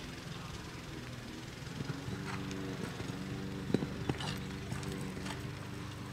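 Horse's hooves striking an all-weather arena surface as it takes off over and lands from a showjumping fence: two sharp thuds about half a second apart near the middle, with lighter canter hoofbeats around them. A steady low hum runs underneath.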